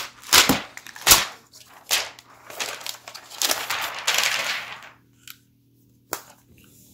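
Protective plastic film being peeled off a new tablet: a few sharp crackling snaps, then a longer crinkling rustle. It goes quiet about 5 s in, with one click about a second later.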